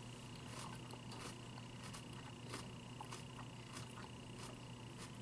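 A person chewing a mouthful of salad with the mouth closed: soft, irregular crackles and clicks several times a second over a faint steady hum.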